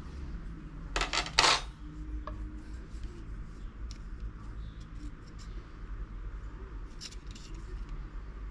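Handling noise from a steel bicycle disc brake rotor and plastic digital calipers: a brief burst of scraping and clicking about a second in, then a few faint ticks as the caliper jaws are set on the rotor's edge.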